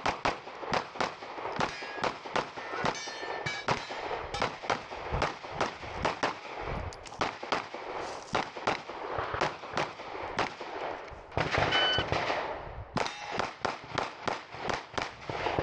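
Rapid strings of 9mm pistol shots from a Glock 17 Gen 5, fired in quick succession with brief pauses between strings. Each shot is sharp and echoes.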